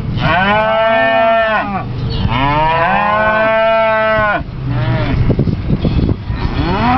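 Cattle mooing at close range: two long, loud moos one after the other, a shorter fainter one, then another long moo starting near the end, with some scattered knocks in between.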